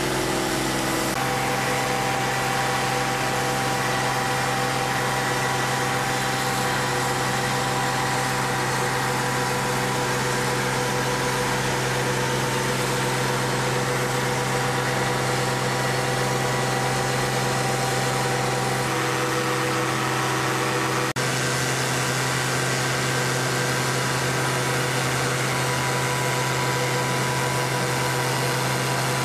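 Steady drone of concrete batch plant machinery: a low hum with several steady tones above it, and a brief dropout about two-thirds of the way through.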